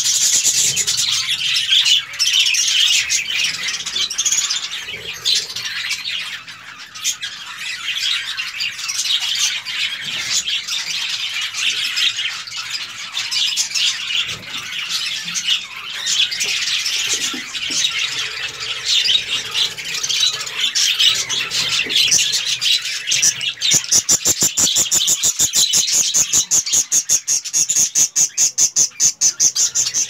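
A colony of budgerigars chattering and squawking, many birds calling at once in a dense, continuous warble. In the last few seconds the chatter gives way to a fast, even pulsing of short chirps, several a second.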